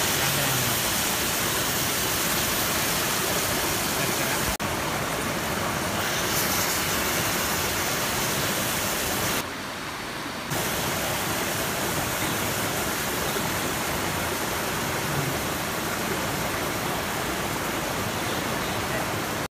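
Shrimp in chili sauce and oil sizzling steadily on a hot iron griddle, with a quieter second about ten seconds in.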